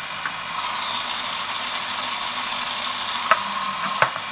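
Silvercrest Monsieur Cuisine Plus food processor running at speed 4 with its whisk attachment, mixing egg yolks, sugar and cream: a steady whirring motor hum. A few short clicks come near the end.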